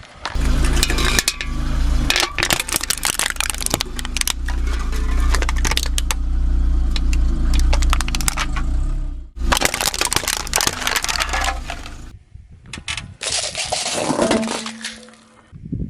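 A car's engine runs low and steady while its tyre rolls over and crushes objects, giving a dense run of cracks, crunches and metallic clinks. The sound breaks off abruptly about nine seconds in and again about twelve seconds in, each time giving way to another stretch of crunching.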